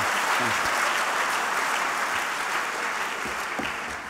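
Audience applauding, gradually dying away near the end.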